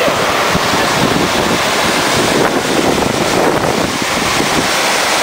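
Milky volcanic hot-spring stream bubbling and rushing over rocks, with wind on the microphone.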